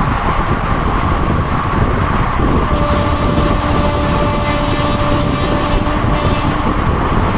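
Indian passenger train running along the track: a loud, steady rumble of wheels and carriage. A faint steady tone joins it about three seconds in and fades out near the end.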